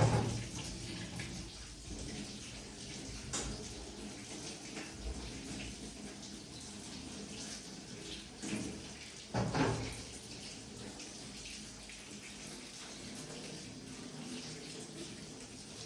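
Water running and splashing, as in washing by hand, with a few knocks; the loudest knock comes at the start and another about nine and a half seconds in.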